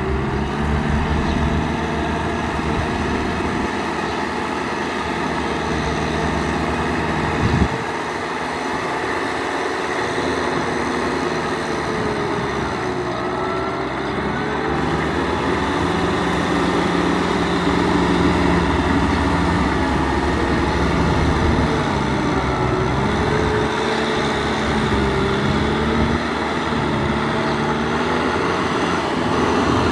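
Kubota M6040SU tractor's diesel engine running under load as it pulls a rotary tiller through deep mud, its pitch rising and falling with the load. A single sharp knock about eight seconds in.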